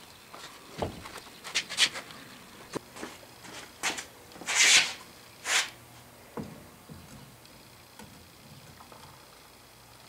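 A string of short scrapes, rubs and knocks from handling a steel sand-casting flask and foundry tools, the loudest a half-second scrape about four and a half seconds in and another a second later; after that it goes quieter.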